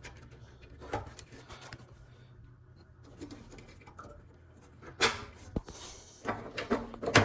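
Clicks and knocks of parts being handled while a tankless water heater's water outlet clamp is worked loose: a single knock about a second in, then a cluster of sharper clicks and clatter from about five seconds on.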